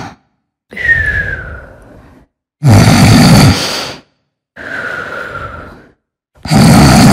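A person snoring in their sleep. Loud, rattling in-breath snores come about a second and a half long, twice, each followed by a softer out-breath carrying a faint whistling tone. A third snore begins near the end.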